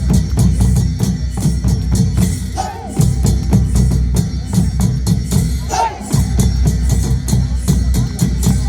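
Nepali folk-fusion ensemble music with busy, steady drumming over a deep bass pulse. A melody line slides in briefly a few times.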